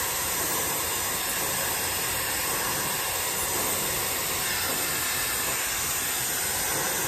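Dyson Airwrap Complete's pre-styling dryer attachment blowing a steady rush of air while drying wet hair, running on its highest airflow setting. It is not very loud.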